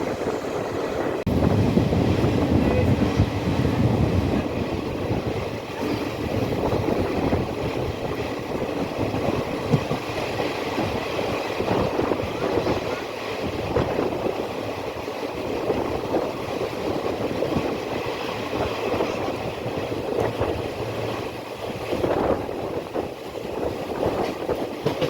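Passenger train running along the track: a steady rumble and rattle of the carriage with irregular wheel knocks, louder and deeper for a few seconds near the start.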